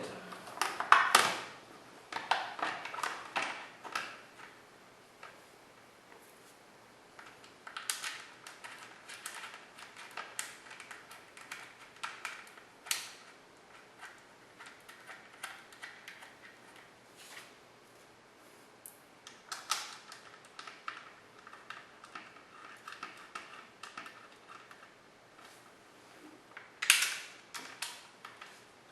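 Scattered, irregular clicks, knocks and short rattles of hand tools and parts being handled while a motorcycle fork guard is fitted back on and bolted up, with sharper knocks about a second in and near the end.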